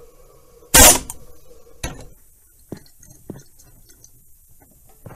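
Hammer blows driving a part down onto the oil pump shaft: one loud metallic strike about a second in, then a few lighter taps.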